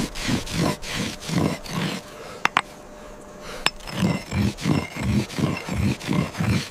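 A hand-held stone rubbed back and forth over the top of a cut stone block, smoothing its face. It makes a rhythmic rasping scrape at about three strokes a second, breaks off for a second or two midway with a couple of sharp clicks, then starts again.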